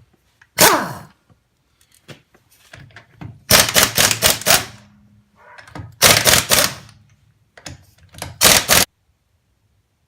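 Impact wrench rattling in several short bursts, loosening the wheel's lug nuts.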